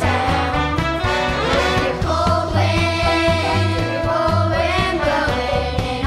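Children's choir singing together over instrumental accompaniment with a steady, pulsing bass beat.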